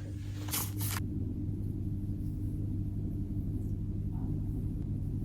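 Steady low hum, with a brief rustle about half a second in.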